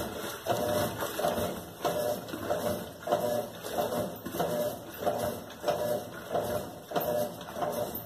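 Colormaq LCA11 top-loading washing machine agitating a tub of water, with regular churning strokes about twice a second. The machine has a failing transmission (câmbio), which the technician says is already making a fairly strong noise.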